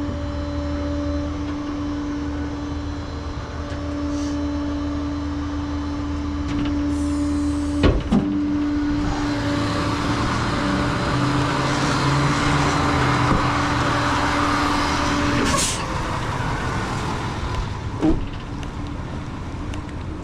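Rollback tow truck running with its bed hydraulics engaged, a steady whine over the engine as the flatbed is moved. There is a sharp metal clank about 8 seconds in. From about 9 seconds a hiss joins in, and about 15 seconds in the whine and hiss cut off together with a click. Another clank comes near 18 seconds.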